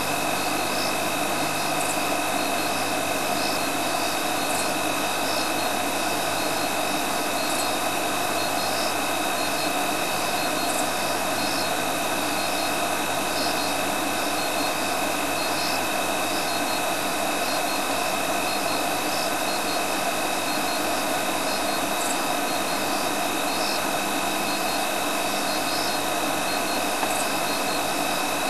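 Steady hum and hiss from an idling safari vehicle engine. Faint high chirps repeat about twice a second over it, like night insects.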